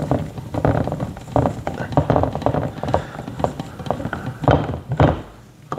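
Irregular clicks and knocks, a few per second, of a metal hose bracket being held against drywall and screwed into a sheetrock anchor by hand. They die down just before the end.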